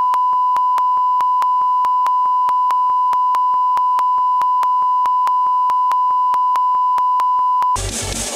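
A censor bleep: one steady, unbroken high beep tone masking the original audio. It cuts off suddenly near the end and electronic dance music with a heavy beat comes in.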